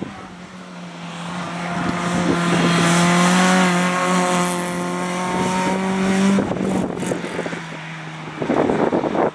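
Peugeot 206 rally car driving past at speed, its engine held at fairly steady revs and loudest about three to four seconds in. The engine note drops away about six and a half seconds in as the car moves off. A rough rushing noise takes over near the end.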